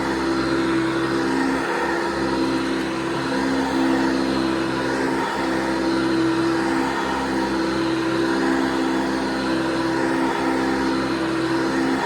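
1982 Hoover Guardsman upright vacuum cleaner running, its motor giving a steady hum and whoosh that shifts slightly in pitch every second or so.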